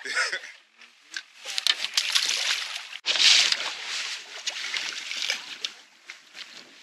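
Sea water sloshing and splashing against the hull of a small boat, louder from about three seconds in.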